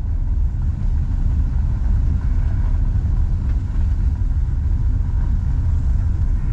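Steady low rumble of a car driving, its engine and road noise heard from inside the cabin.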